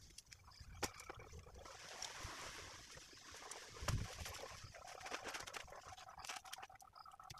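Dome tent being pitched: shock-corded tent pole sections clicking together and the tent's fabric rustling, with one dull thump about four seconds in.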